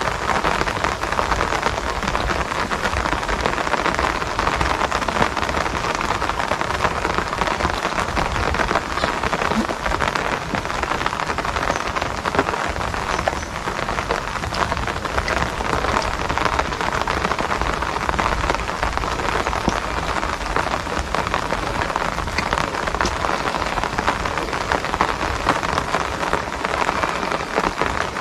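Steady rain falling, an even hiss with many small drop ticks that holds at the same strength throughout.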